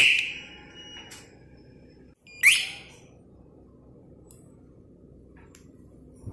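Motorcycle alarm siren cutting off at the start, then a single short, loud rising chirp from the same siren about two seconds later.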